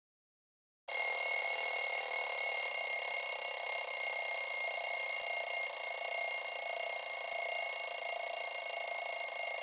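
Smartphone alarm ringing: a steady, high electronic ring of several held tones that starts abruptly about a second in.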